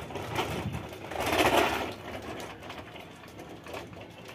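Wheels of a model Leyland truck rolling and rattling over a concrete floor as the toy is pushed along, loudest about a second and a half in, then fading.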